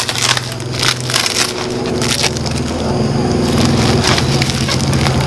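Box cutter sawing and picking at the plastic raffia twine tied round the neck of a woven polypropylene sack, with the stiff sack crackling and rustling in the hands. A steady low hum runs underneath.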